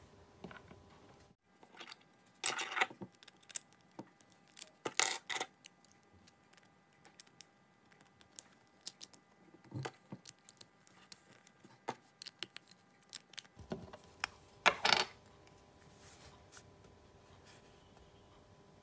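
Beyblade parts being handled and fitted together: scattered clicks and clinks of the metal fusion wheel and plastic track and bottom, with louder clatters three times. The middle stretch is played back at double speed, so its clicks come quick and close together.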